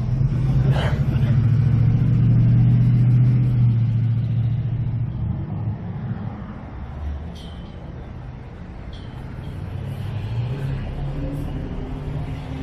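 A motor vehicle's engine passing close by, loudest about two to three seconds in and then fading, with another vehicle growing louder near the end.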